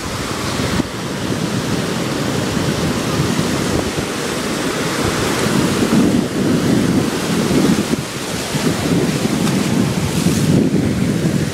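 Ocean surf breaking and foamy water washing through the shallows, swelling and easing with each wave, with wind on the microphone.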